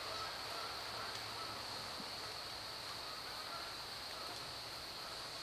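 Quiet outdoor ambience: a steady high hiss with a few faint, short distant bird calls.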